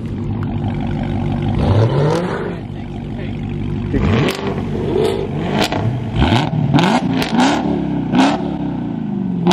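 Car engine being revved in short blips: the pitch sweeps up and drops back several times, the blips coming quicker in the second half, with sharp pops among them.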